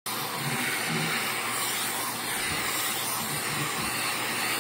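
Canister vacuum cleaner running steadily with an even hiss while its hose's brush nozzle is drawn over a tabby cat's fur to groom it.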